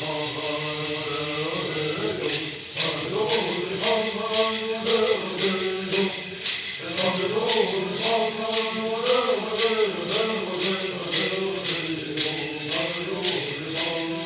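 Hualapai bird song: men's voices chanting together to gourd rattles. The rattles shake steadily at first, then about two seconds in switch to a regular beat of a little over two strokes a second.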